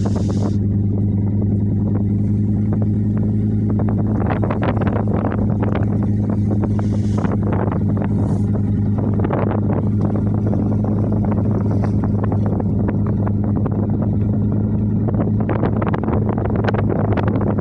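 A fishing boat's engine running at a steady, unchanging low drone, with an irregular crackle of short noises over it that thickens about four seconds in and again near the end.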